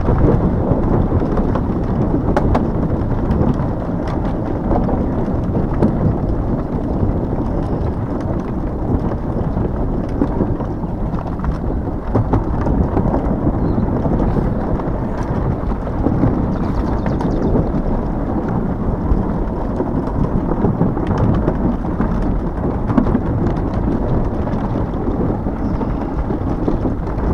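Steady low rumble of wind buffeting the microphone together with a Hiboy S2 Pro electric scooter rolling over a rough park path, with scattered small knocks and rattles.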